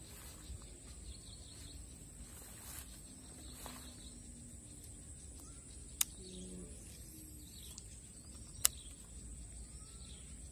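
Steady high-pitched insect buzz with faint bird chirps, broken by two sharp clicks about two and a half seconds apart, the loudest sounds here.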